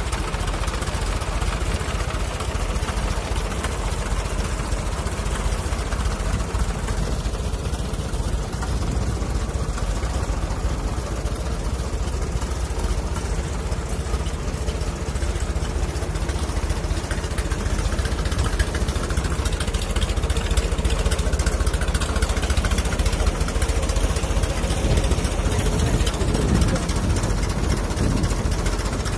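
Old tractor engine idling steadily, growing a little louder about halfway through.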